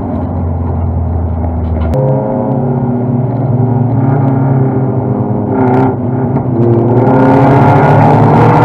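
Toyota Celica race car's 5S-FE four-cylinder engine heard from inside the cabin, running steadily at low speed. About two seconds in the sound changes abruptly and the engine climbs in pitch under acceleration, with a brief drop at a gear change about six seconds in, then climbs again, louder, near the end.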